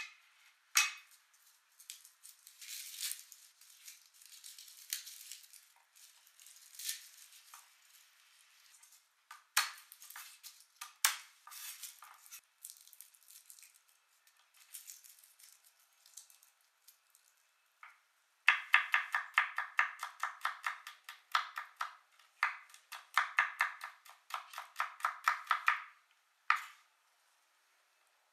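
Garlic being prepared on a wooden cutting board: for the first several seconds, crackling rustles as the dry papery skins are rubbed off the cloves, with a few sharp taps. Then a chef's knife chops quickly and evenly on the board, about six strokes a second, stopping shortly before the end.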